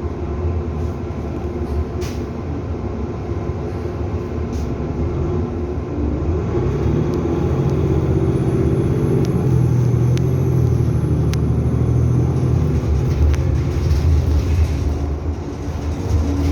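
Novabus LFS city bus engine running. About six seconds in it pulls harder: the engine note rises and grows louder for several seconds, with a faint high whine over it, then eases off near the end. A few short clicks and rattles come through.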